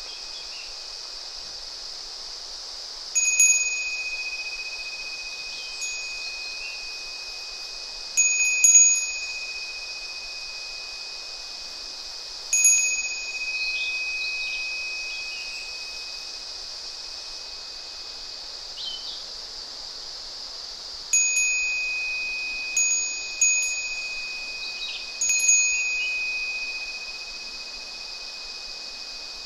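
Japanese wind bell (fūrin) ringing in irregular clusters of strikes, about nine in all, each a single high clear tone that rings on for a few seconds and fades. Beneath it runs a steady babbling stream with a constant high cicada drone and a few faint bird chirps.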